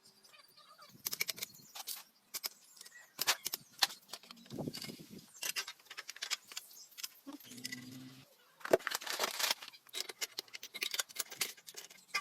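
Metal engine parts and hand tools clinking, knocking and scraping in a quick, irregular series of sharp clicks, with a brief low buzz a little past halfway.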